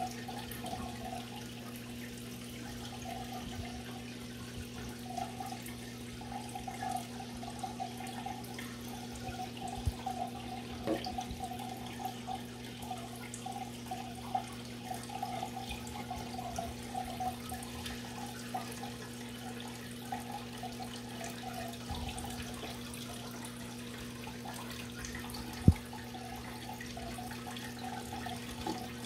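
Aquarium filter pump running with a steady low hum, water burbling and trickling over it. A few faint clicks, and one sharp knock about 26 seconds in.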